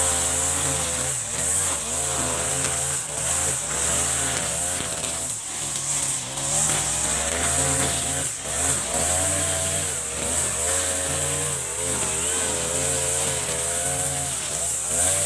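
Backpack brush cutter's small petrol engine running while cutting grass, its pitch rising and falling over and over as the blade swings through the grass.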